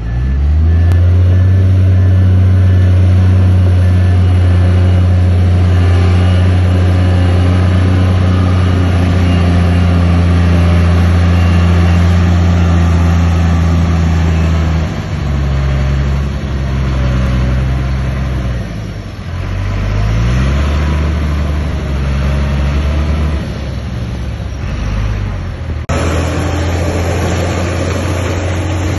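Heavy diesel engine of earthmoving machinery running hard. The engine note drops about halfway through, sags, then climbs again about two-thirds of the way in. The sound changes abruptly near the end.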